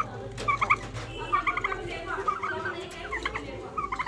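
Caged domestic fowl calling: many short, repeated chirping calls from several birds, overlapping throughout.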